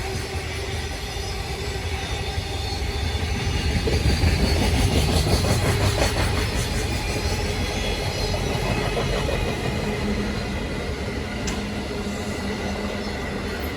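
JR Freight EF210 'Momotaro' electric locomotive with its cooling blowers running, slowly pulling a freight train away from an emergency stop, with the low rumble of the locomotive and wagons. The rumble is loudest about four to six seconds in, and a steady low hum joins about ten seconds in.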